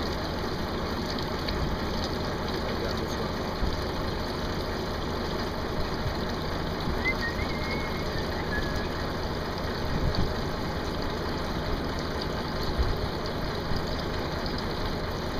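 Water pouring steadily from a fish-transport truck's tank down a stainless-steel chute into a trough, over a steady low rumble from the idling truck.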